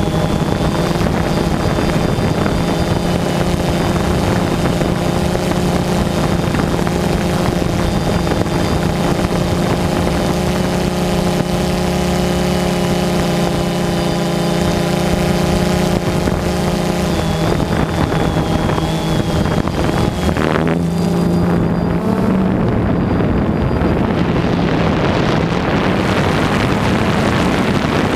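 Multirotor drone's electric motors and propellers buzzing steadily as it hovers, the pitch shifting a couple of times as the motors change speed, with wind rushing over the onboard microphone.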